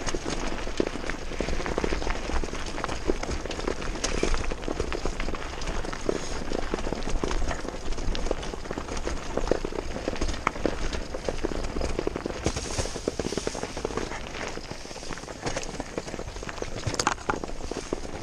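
Mountain bike rolling fast down a rocky dirt trail: tyres crunching over loose stones and the bike rattling and clattering, with a steady low rumble of wind on the microphone.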